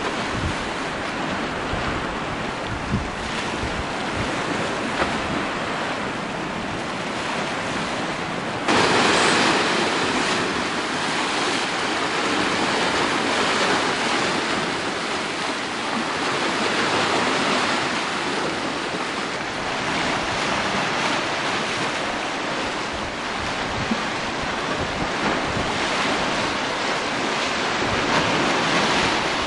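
Sea surf washing and breaking over rocks below a cliff, a steady rushing hiss, with wind rumbling on the microphone. About nine seconds in, the surf cuts suddenly louder and brighter and stays so.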